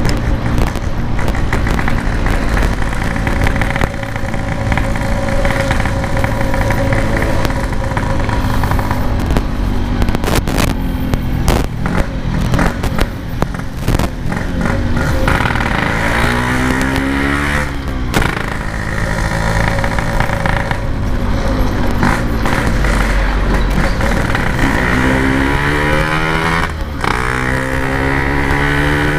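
Yamaha RX-King's single-cylinder two-stroke engine running loud through a Packing Power PK3 aftermarket exhaust while being ridden, revving up and easing off. The pitch rises and falls about halfway through and again near the end. The rider takes the engine's wavering note for a too-lean fuel mixture.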